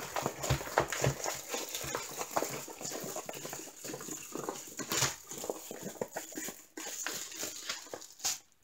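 Crinkling and rustling of plastic packaging and a rolled diamond painting canvas with its film covering as it is handled and unrolled, with many small irregular crackles.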